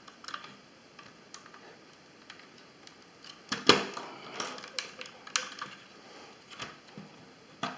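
Scattered small clicks and taps of hard plastic parts and small pliers as the snap-fit plastic frame of a Walkera Rodeo 150 quadcopter is worked back into place, with a cluster of sharper clicks in the middle and the loudest a little under four seconds in.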